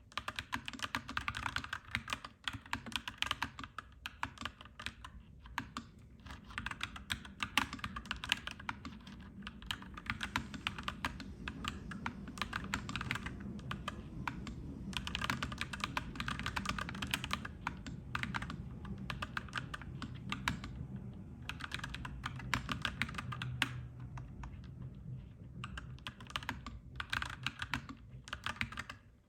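Typing on a clacky mechanical keyboard, in bursts of fast keystrokes with short pauses between them. A low rumble builds underneath through the middle and fades near the end.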